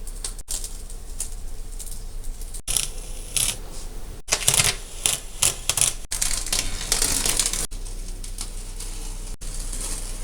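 Painter's edge tape being peeled off a freshly painted wall: a run of crackling rips, busiest and loudest in the middle few seconds.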